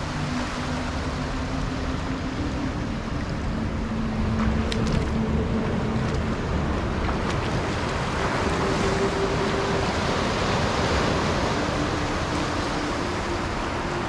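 Small waves washing in over shallow water and pebbles along a rocky shoreline, a steady surf wash that swells in the middle and eases again near the end.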